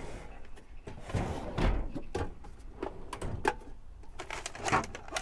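Scattered knocks, clicks and rustling of spare parts and storage bins being handled and moved on a work van's shelving.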